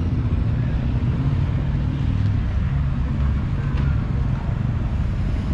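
Motorcycle engines running, a steady low rumble.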